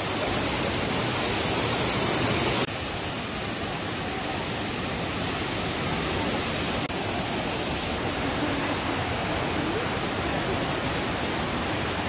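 Sekumpul waterfall, a steady rush of falling water, dropping slightly in level about three seconds in.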